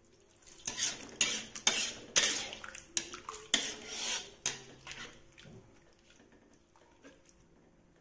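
Metal spatula scraping and clanking against a metal wok while stirring chicken in a thin sauce: a run of quick, irregular strokes that dies down after about five seconds.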